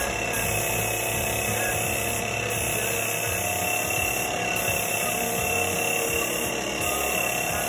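Motor-driven spray pump running steadily, feeding a hand-held spray wand on a hose.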